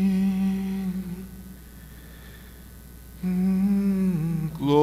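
A voice humming a low held note, twice with a pause between: the starting pitch given for the choir. The choir comes in singing at the very end.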